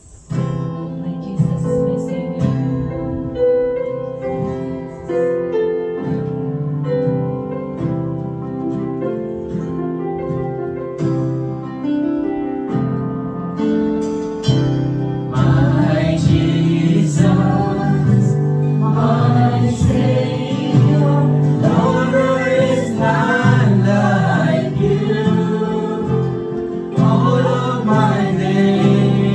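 Live worship band playing a praise song on keyboards, guitars and drums. The first half is instrumental, and singing comes in about halfway through.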